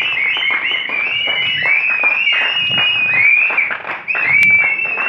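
A small group clapping, with several people whistling over it: shrill whistles that rise and fall, overlapping one after another.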